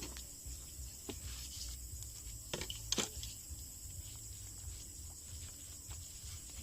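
Crickets chirping in a faint, steady chorus, with a few sharp knocks about two and a half and three seconds in.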